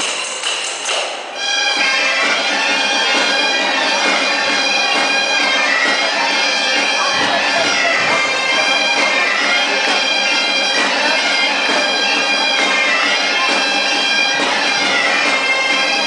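Bagpipe music for a folk dance: the pipes come in about a second in, playing a lively melody over a steady drone, after a moment of tambourine jingling.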